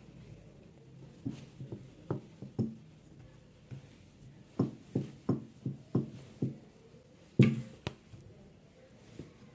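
Hands patting and pressing a ball of bun dough flat on a wooden chopping board: a series of soft knocks. A quick even run of about six comes a little past the middle, and one louder knock follows near the end.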